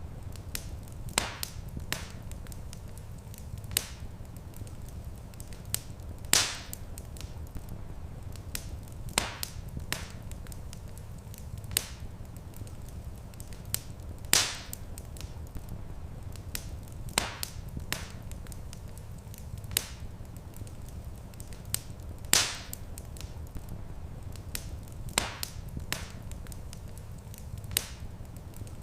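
Wood fire crackling in a stone fireplace: irregular sharp snaps and pops over a low steady rumble, with a louder pop about every eight seconds.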